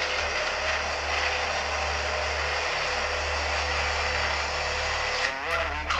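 Ghost box (spirit box) radio putting out a steady hiss of static with a low hum underneath. A brief voice fragment comes through near the end.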